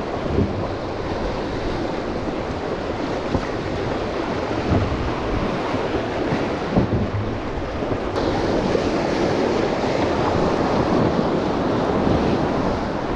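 Fast, high river water rushing in riffles around a small inflatable raft, with wind buffeting the microphone in scattered low thumps.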